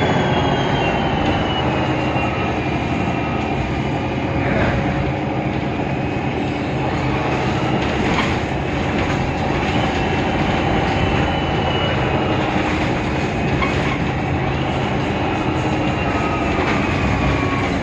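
Mercedes-Benz Citaro O530 Ü city bus running in service, with its OM 906 hLA diesel and Voith DIWA automatic gearbox under a steady rumble. Several high-pitched whines slowly rise and fall in pitch over it.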